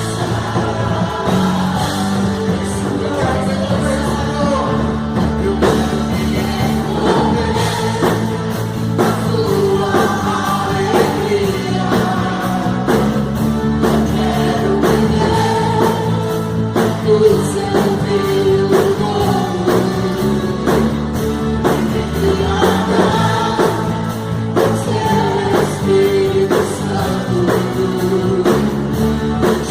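Live worship band music: a drum kit playing a steady beat with bass and keyboards under lead and backing singers.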